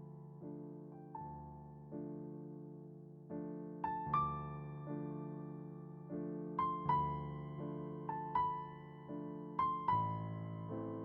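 Slow, soft solo piano music: single struck notes and held chords that ring out and fade slowly.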